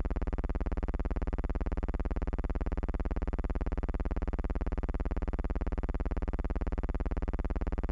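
Steady low buzzing hum from an early sound-on-film newsreel soundtrack, pulsing rapidly and evenly.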